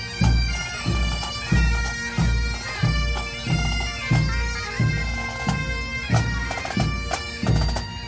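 A marching pipe band playing: bagpipes sounding a tune over their steady drones, with a bass drum keeping a regular beat.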